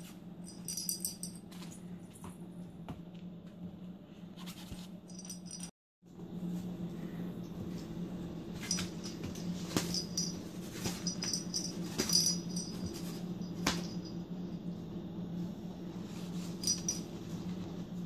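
Small bell toy jingling in short, irregular bursts as a kitten bats it around, with a few light taps against the playpen, over a steady low hum. The sound drops out completely for a moment about six seconds in.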